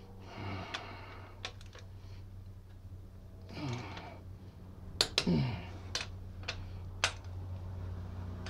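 Torque wrench working the cylinder head bolts of a Ford 3.0 L V6: short ratcheting rattles as the handle is worked, and several sharp clicks as the wrench reaches its set torque of 73 foot-pounds on the final tightening step. A steady low hum runs underneath.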